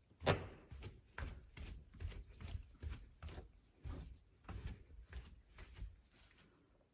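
Footsteps on a wooden floor in a small room: a run of irregular thuds, about two or three a second, the first one the loudest, trailing off near the end.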